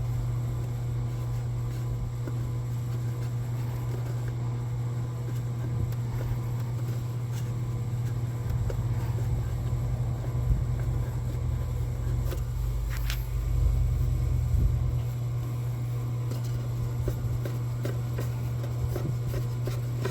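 A steady low hum runs under scattered light clicks and knocks as a mount and its bolts are moved around and fitted by hand. The knocking is a little busier a little after halfway.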